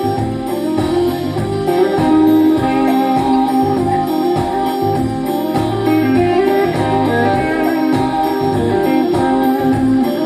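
Instrumental passage of a rock song led by guitar over bass and drums, played back through 1970s vintage loudspeakers and picked up in the room.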